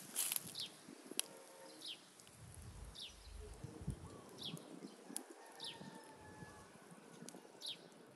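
A small bird repeating a short, high chirp that falls in pitch, every second or two, faint against the outdoor background. Two sharp clicks are heard, about a second in and again near the middle.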